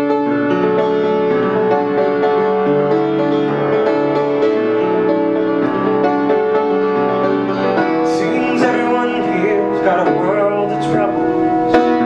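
Grand piano playing a slow instrumental passage of a ballad, with held chords and a melody changing in steps. About eight seconds in, a second melody line with a wavering pitch joins over the piano.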